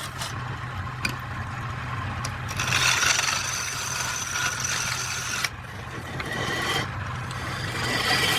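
Wood lathe running with a steady low hum while a turning tool cuts the spinning wood in a hissing scrape. The cut comes and goes: it grows loud a few seconds in, stops abruptly about halfway through, then picks up again near the end.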